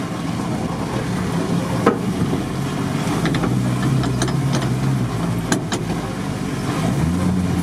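Volkswagen Transporter T3's rear engine running under load as the van crawls along a rough dirt track, heard from inside the cab; its engine lid has come off, so the engine is uncovered. A few sharp knocks from the body over bumps, and the engine note rises near the end.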